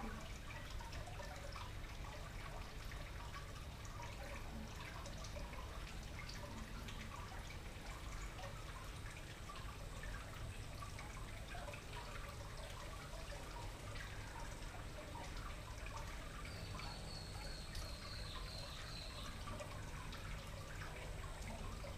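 Garden water-feature fountain trickling and dripping steadily. A short run of high chirps comes in about three quarters of the way through.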